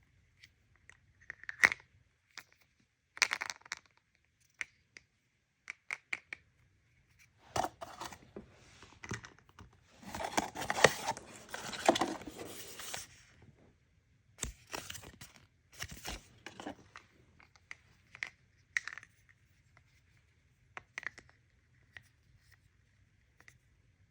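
Toy packaging being handled and torn open by hand: scattered crinkles and clicks, with a longer stretch of tearing and crinkling about eight to thirteen seconds in.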